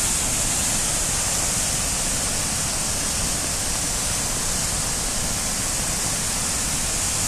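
Krimml Waterfalls: a loud, steady rush of falling water, so much noise that a voice is hard to hear over it.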